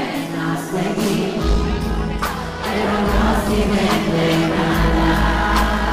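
Pop music with singing; a heavy bass and drums come in about a second and a half in.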